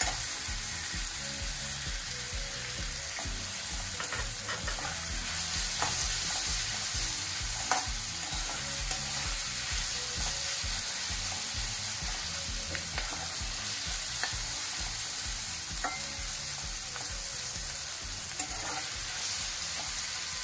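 Sliced vegetables sizzling in hot oil in an aluminium kadhai as they are stir-fried over a high gas flame, a steady hiss broken by the scrape and tap of a flat spatula against the pan every few seconds.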